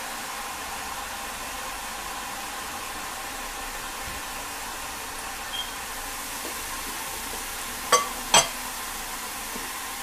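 Boondi batter drops frying in hot oil with a steady sizzle. About eight seconds in come two sharp metal clinks half a second apart from the steel boondi ladle.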